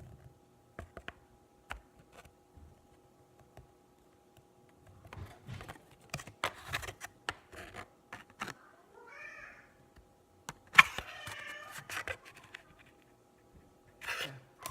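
A cat meowing: a short call about nine seconds in, then a louder, longer, wavering meow about two seconds later, amid light rustling and clicks.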